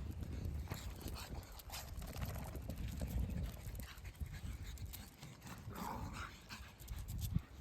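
A dog panting, with a short whine about six seconds in.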